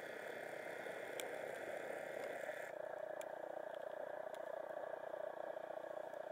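Steady wash of surf on a sandy beach, with a few faint ticks.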